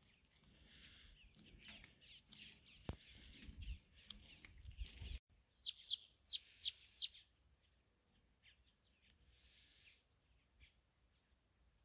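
Wild birds chirping faintly, with a run of five quick, downward-sliding calls about six seconds in, then scattered softer calls over a faint steady high hiss.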